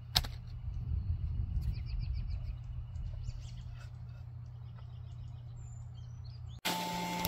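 A single sharp knock just after the start as a car battery is set down on the grass, then small birds chirping in quick runs of short high notes over a low wind rumble. Near the end the sound cuts abruptly to a steady electrical hum.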